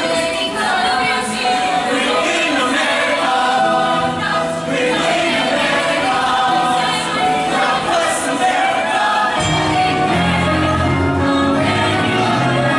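Mixed show choir singing in parts with musical accompaniment. A low part comes in strongly about nine and a half seconds in.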